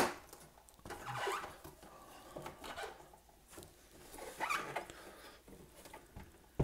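Gloved hands handling a vintage tape recorder's case: a sharp click at the start, then faint rubbing and scraping, with short squeaky scrapes about a second in and again past the middle, and another click at the end.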